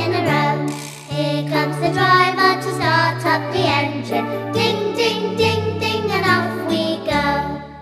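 Children's song: young voices singing in unison over an instrumental backing with a bouncing bass line, the words running 'standing in a row… to start up the engine, ding, ding, ding, ding and off we go'.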